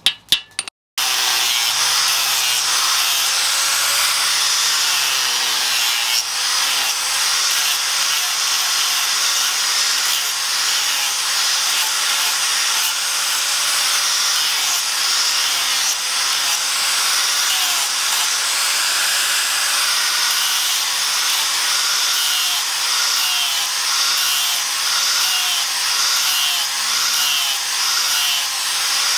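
One last hammer strike at the very start, then an electric angle grinder with a sanding pad runs steadily, sanding the wooden handle scales of a sword. The grinder gives a constant, even hiss of abrasive rubbing on wood.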